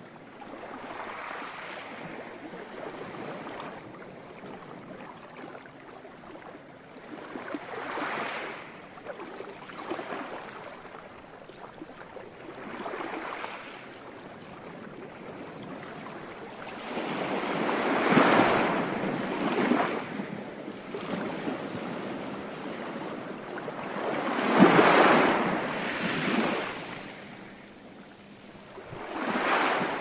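Sea waves breaking and washing up on a beach, one swell after another every few seconds, the two loudest a little past halfway and again about five seconds from the end.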